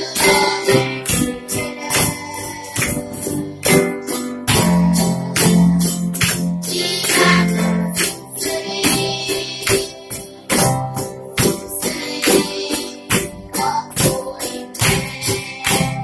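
Live children's band playing a song: cajón and tambourine-like percussion keeping a steady beat about twice a second under strummed small guitars and keyboard, with children singing along.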